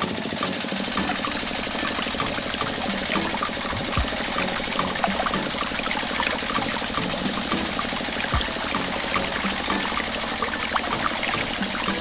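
Small electric motor running steadily, a whirr with a fast, fine gear rattle, and two soft low thumps about four and eight seconds in.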